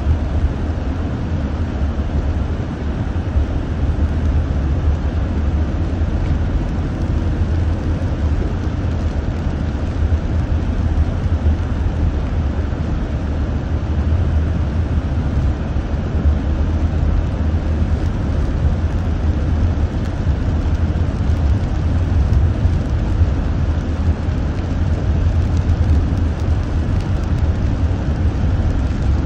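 Steady low rumble of a car driving on a wet road, heard from inside the cabin, with an even hiss of tyres on water.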